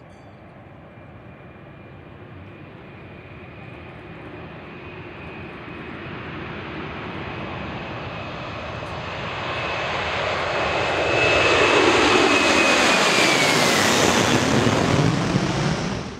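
Airbus A330 jet engines at takeoff power as the airliner climbs out toward and over the listener. The engine noise builds steadily to its loudest in the last few seconds, with a high whine that drops in pitch as the aircraft passes overhead.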